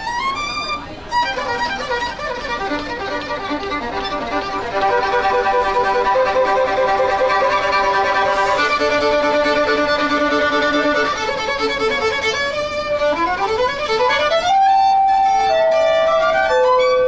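Violin bowed solo, playing a melody of long held notes, with quick rising runs about three-quarters of the way through.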